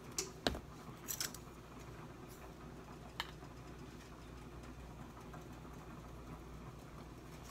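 A seasoning shaker bottle rattling and clicking a few times in the first second and a half, then a single click a little after three seconds, over a faint low room hum.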